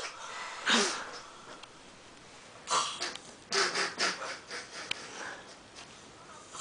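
A drunk man snoring in his sleep: a few irregular, noisy breaths and snorts with quiet gaps between them.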